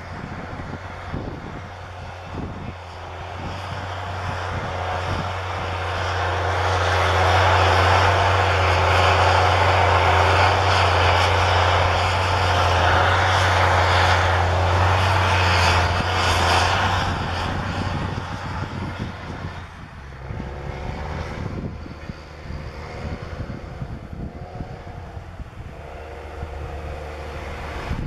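Caterpillar Challenger MT755B rubber-tracked tractor's diesel engine working under load while pulling a cultivator, with a steady low hum. It grows louder for the first few seconds, is loudest in the middle as the tractor passes close, and falls back to a lower level about two-thirds of the way in.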